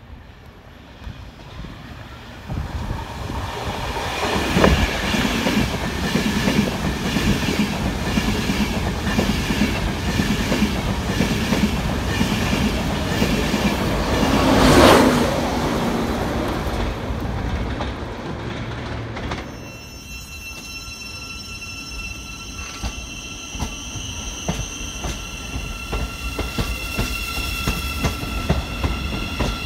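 LNER Azuma train passing along the platform, its wheels clattering in a steady rhythm, loudest about halfway through and then dying away. From about two-thirds through, a Great Northern electric multiple unit moves along the platform, its traction motors giving a steady high electric whine over light wheel ticks.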